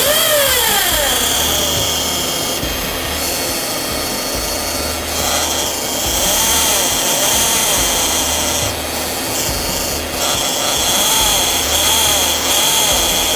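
Toyota Alphard's K115 automatic transmission running with the engine on, heard up close: a steady high whine and rubbing noise, with a whine that rises and falls in pitch in repeated arcs near the start and twice later. It is an abnormal noise from the transmission, in a gearbox that already delays engaging and stalls the car once hot.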